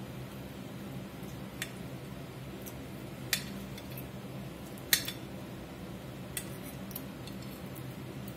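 A metal fork clinking and scraping on a ceramic dinner plate while cutting through breaded chicken fried steak, a few sharp clinks with the loudest about five seconds in, over a steady low hum.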